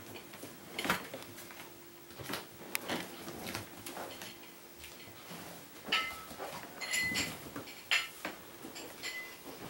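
Kittens scampering and pouncing on a hard floor, with irregular light taps and knocks from their paws and claws. A few sharper clinks carry a short ringing tone, the loudest about a second in and around six to eight seconds in.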